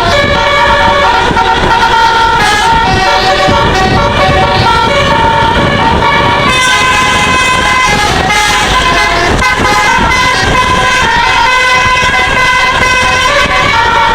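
Telolet musical air horn on a QQ Trans bus playing a melody of short held notes that step from pitch to pitch without pause, over a low rumble.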